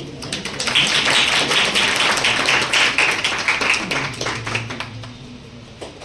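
A small audience clapping, a dense patter of many hands. It starts just after the beginning, holds loud for about three seconds and fades out after about four seconds.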